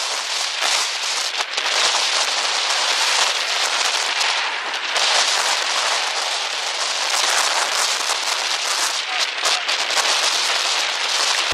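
Rain pattering hard on surfaces near the microphone: a dense hiss full of fine crackles that swells and eases in gusts.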